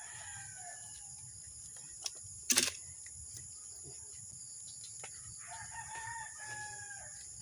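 A rooster crowing twice, one crow trailing off about a second in and another starting about five and a half seconds in. A single sharp click about two and a half seconds in.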